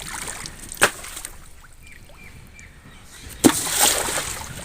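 Splashes in shallow pond water: a sharp splash about a second in, then a louder splash about three and a half seconds in that washes on for about a second.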